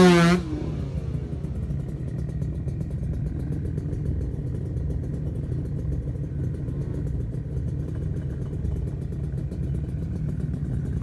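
A vehicle engine running steadily, a low even rumble. In the first half-second a loud held tone ends with a slightly falling pitch.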